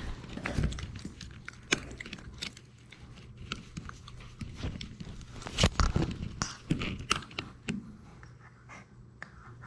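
Labrador puppy mouthing and chewing on a GoPro right at its microphone: irregular clicks, scrapes and knocks of teeth on the camera housing, with panting close by. The loudest knock comes a little over halfway through.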